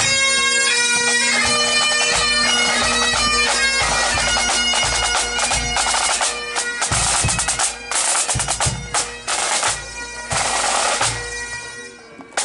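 A pipe band of Highland bagpipes, snare drums and a bass drum playing on the march. The pipes' tune gives way about halfway through to loud snare rolls and drum beats over the steady pipe drones, and the music stops shortly before the end.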